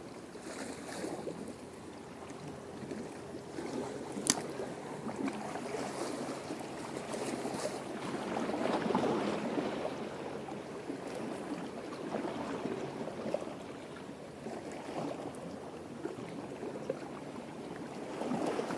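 Small waves lapping and splashing at the water's edge, swelling and fading every few seconds, with one sharp click about four seconds in.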